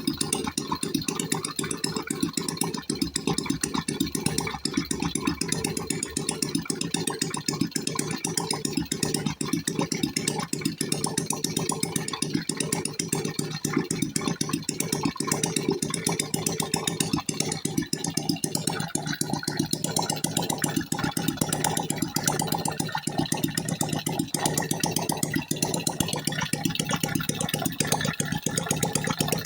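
Freshly rebuilt engine idling steadily with an even, rapid pulse, run to check that the oil pump is delivering oil through its passages.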